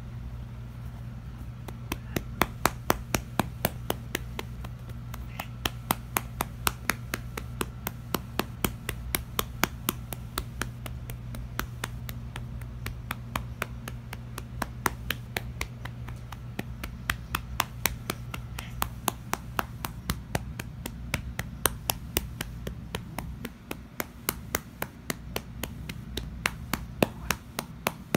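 A hand patting a cat's rump over and over: a quick run of sharp slaps on fur, roughly three a second, starting about two seconds in.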